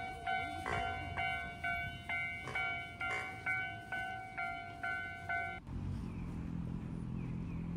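Japanese railway level-crossing alarm ringing its repeated electronic ding, about two strikes a second, the warning that a train is coming. It cuts off suddenly near the end, giving way to a steady low hum.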